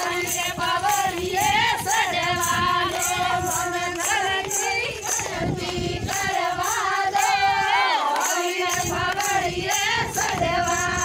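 Women's singing of a Marwari devotional bhajan, one wavering melodic voice over a steady held tone, with a regular beat of sharp, high, jingling strikes.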